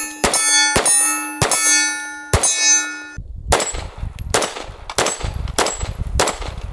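A Staccato XC 2011 pistol firing a string of about ten shots, with steel targets clanging as they are hit. Over the first half a steady metallic ring hangs between the shots; from about three seconds in the ringing fades and the shots come about one every two-thirds of a second over a low rumble.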